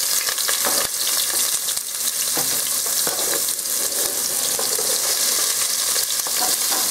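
Chopped onion sizzling steadily as it drops into a hot pot, with faint scraping as it slides off a plastic cutting board.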